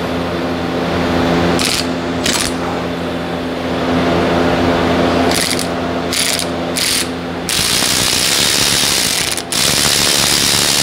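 Cordless electric ratchet with a 7 mm Allen bit tightening a rear brake caliper's guide pin bolt: a few short bursts, then a longer steady run of about four seconds near the end. A steady low hum sounds under it.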